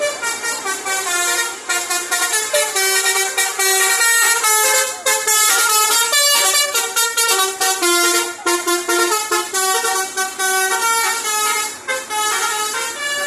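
Bus 'telolet' musical air horn (Basuri type) playing a fast melody of loud tooting notes that step up and down in pitch, with short gaps between phrases.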